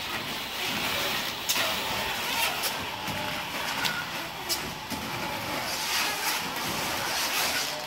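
A luggage wrapping machine turning a suitcase while plastic stretch film is pulled tight around it. The film crackles and rustles steadily, with frequent short sharp crackles.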